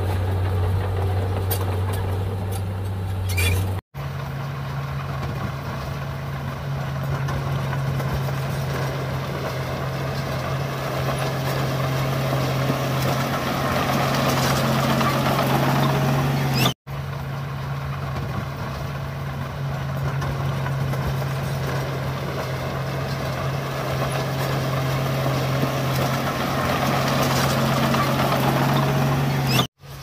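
Small Komatsu crawler bulldozer's diesel engine running steadily as it pushes soil and broken rock, with a steady low hum under a rough noisy clatter. The sound drops out abruptly for an instant about 4 seconds in and again near the middle, and the engine tone sits higher after the first break.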